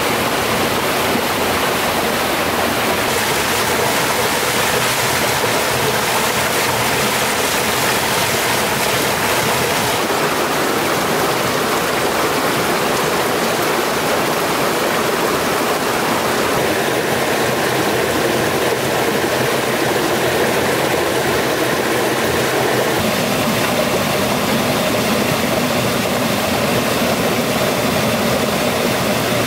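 Forest stream rushing steadily and loudly over rocks. Partway through, a faint steady hum joins in underneath the water.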